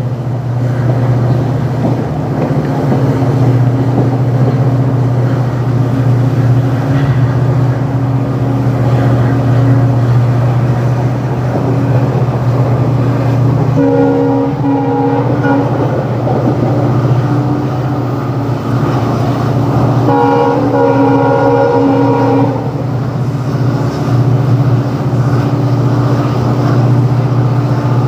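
WDG4 diesel locomotive hauling a passenger train: a steady low running drone, with the locomotive's horn sounding twice, a short blast about halfway through and a longer one of about two seconds near three-quarters of the way through.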